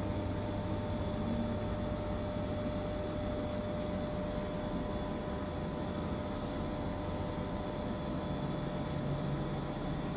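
Steady mechanical hum inside the enclosed glass cabin of an observation wheel, with a faint steady whine over it.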